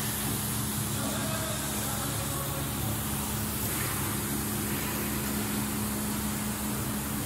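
Steady low mechanical hum under a broad, even hiss: the background noise of a machinery workshop.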